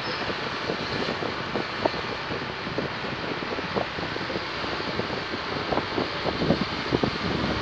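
Wind buffeting the microphone of a moving vehicle, a steady rushing noise broken by irregular low thumps, with the vehicle's running underneath.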